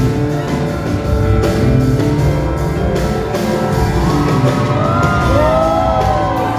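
Live rock band playing, with guitar, bass and drums. From about four seconds in, audience voices whoop over the music, rising and falling in pitch.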